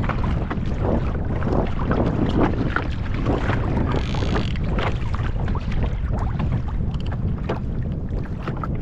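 Steady wind rumbling on the microphone, with water lapping and slapping against a kayak's hull.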